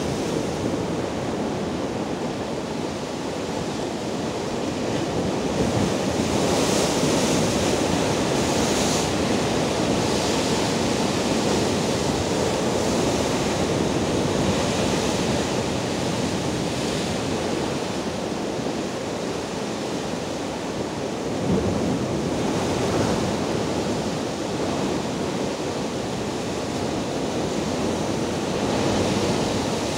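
Rough sea surf breaking over and washing around coastal rocks: a continuous rush of churning white water, with louder, hissier surges about a quarter of the way in and again briefly past two-thirds through.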